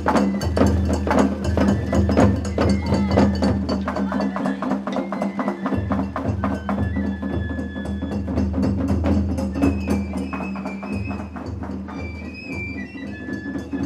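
Festival ohayashi played on a dashi float: rapid drum and metal gong strikes, with a high bamboo-flute melody coming in over them in the second half. The music grows a little fainter near the end.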